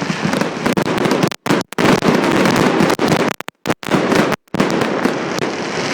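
Fireworks going off: a dense, loud stream of crackling bangs. The sound cuts out completely for brief moments several times.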